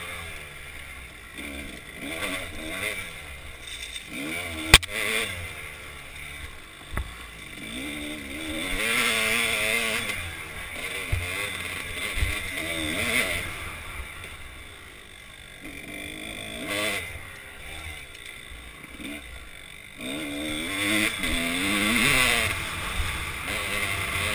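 2005 Kawasaki KDX200's two-stroke single-cylinder engine revving up and falling back again and again as the bike is ridden along a rough dirt trail, heard from a helmet-mounted camera. A single sharp knock comes about five seconds in.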